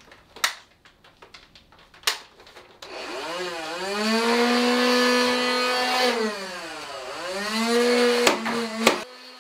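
Stock motorized Nerf Rival blaster spinning its flywheel motors up to speed: a rising whir that holds steady for about two seconds, winds down, then spins up again. Sharp clicks come twice early on and twice more near the end.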